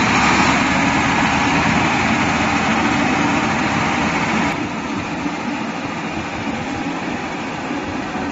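Sinotruk HOWO 6x4 tipper truck's diesel engine running as the truck drives off. The sound turns quieter and duller about halfway through as the truck moves away.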